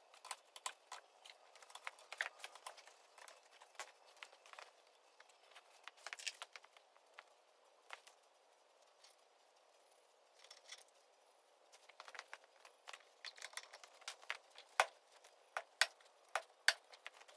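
Scattered light clicks, taps and clinks of hand work on a tractor's front axle hub assembly, with a quiet spell about halfway through.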